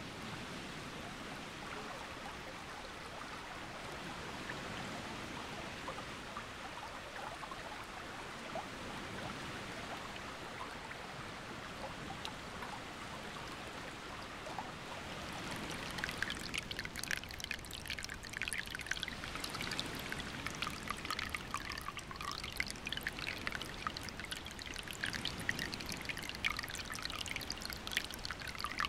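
Small trickle of water running down a wet clay cliff face, a steady running sound that turns louder and more splashy about halfway through.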